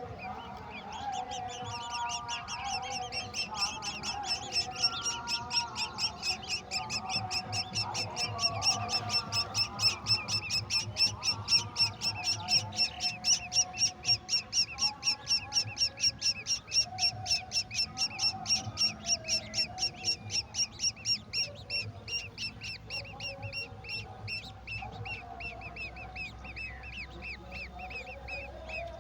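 Golden oriole nestlings begging: a long, fast run of short, high, repeated chirps, loudest midway and fading toward the end, as the chicks call to be fed.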